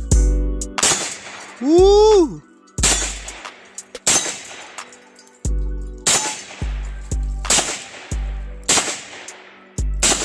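About ten shots from a 9mm AK-pattern pistol, fired one at a time roughly once a second, each a sharp crack with a decaying echo. A shout of 'Woo!' comes about two seconds in.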